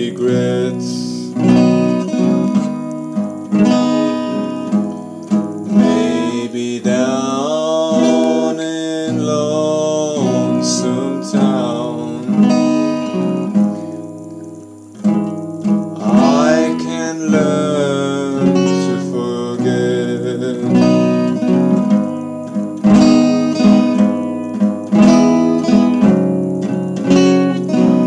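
Acoustic guitar strummed and picked in a steady rhythm, playing a slow song, with a brief softer moment about halfway through.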